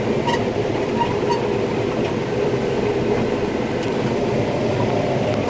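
Combine harvester running steadily while harvesting corn, heard from inside the cab: an even machine drone with a steady hum.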